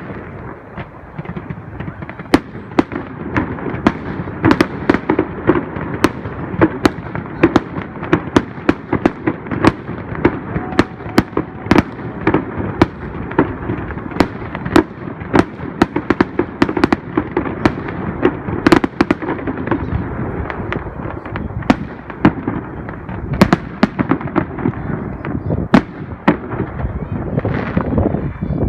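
Fireworks display: a dense, continuous run of sharp bangs and cracks, several a second, over a steady rumbling wash of noise.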